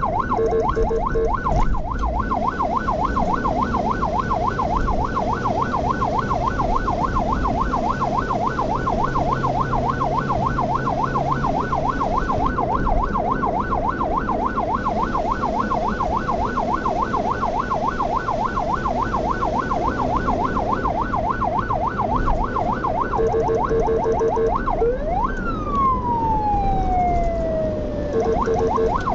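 Ambulance electronic siren on a fast yelp, several rising sweeps a second. Brief bursts of a lower steady tone come about a second in and again a little before the end. After that the siren gives one long falling wail, then the yelp starts again near the end.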